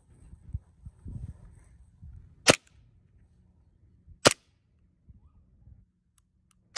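JG Works 1911 CO2 gel blaster pistol firing three sharp single shots, each a little under two seconds apart, the last right at the end.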